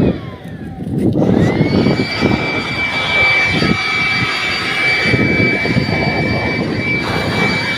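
Battery-powered electric air blower winding down, then spinning up again about a second in to a steady high whine over rushing air, blowing dust out of a combine harvester's air filter.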